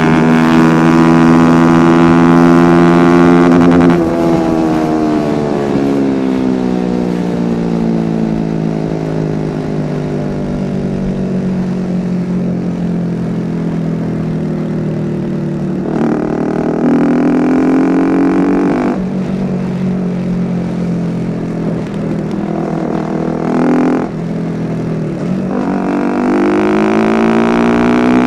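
Honda CBR 250R single-cylinder engine through an Akrapovic exhaust, held at high revs, then falling in pitch as the throttle closes at about four seconds. It settles into a steady run, picks up sharply about halfway, drops again, gives a short blip, and climbs in revs near the end.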